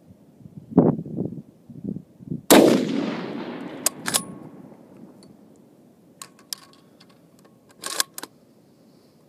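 A single shot from an M1903A4 Springfield bolt-action rifle in .30-06 about two and a half seconds in, a sharp crack with a long fading report. Low bumps come before it, and a string of metallic clicks and clinks follows as the bolt is worked to chamber the next round.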